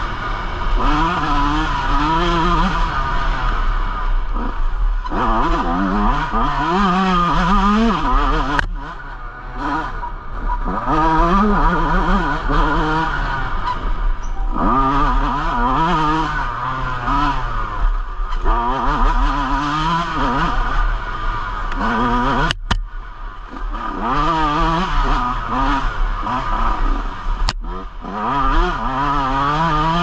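Yamaha YZ125 125cc two-stroke single-cylinder dirt bike engine revving hard, its pitch climbing and falling over and over through the gears on a trail ride. Three times it briefly drops off, each time with a sharp knock.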